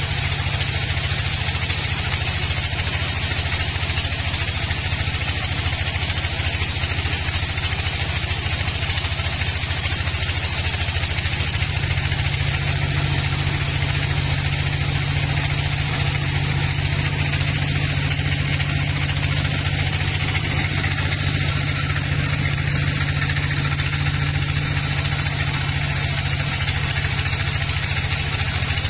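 Band sawmill running steadily as its blade saws through a log: a constant low drone with an even rushing noise above it, unchanging throughout.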